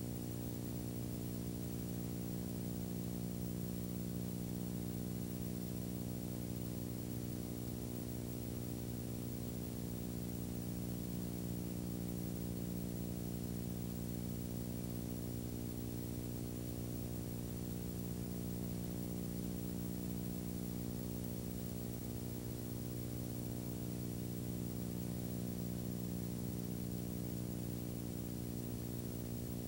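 A steady low hum with evenly spaced overtones over a faint hiss, with no other sound.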